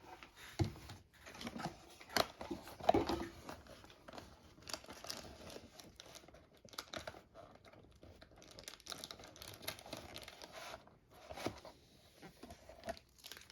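Foil Pokémon booster packs crinkling and rustling as they are handled, with irregular small taps and rustles throughout.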